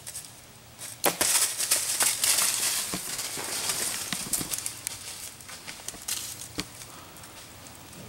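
Whitetail buck stepping through dry fallen leaves: crunching, crackling footsteps with scattered sharp clicks, busiest from about a second in and fading after about four and a half seconds.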